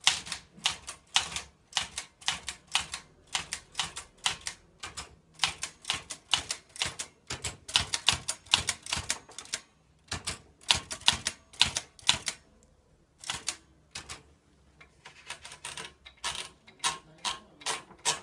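Olivetti Lettera 32 manual typewriter being typed on: quick runs of sharp key strikes, thinning to a few scattered strikes for a few seconds past the middle, then picking up again.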